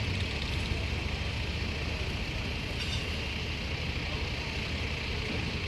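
Steady low engine rumble from a modified pulling lawn tractor at rest, with outdoor background noise.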